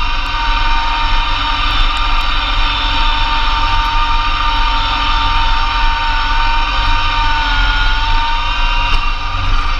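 Massey Ferguson GC2300 compact tractor's diesel engine running steadily under load, driving a Blizzard B48 PTO snowblower through heavy wet snow. A steady high whine rides over the engine and dips slightly in pitch about eight seconds in.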